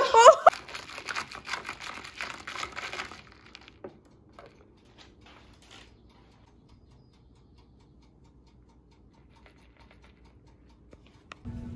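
Rapid light clicking or tapping for about three seconds, thinning to a few scattered clicks, then quiet; music with a steady low note comes in near the end.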